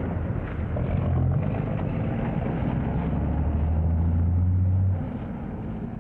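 Heavy truck engine running with a steady low hum as the rig pulls out, dropping sharply in level about five seconds in.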